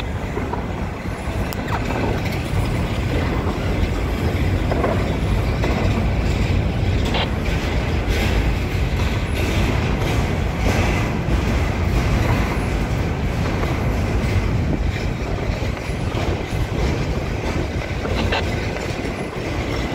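Norfolk Southern double-stack intermodal freight train's well cars rolling past close by: a steady rumble and clatter of steel wheels on rail, with occasional sharper clacks.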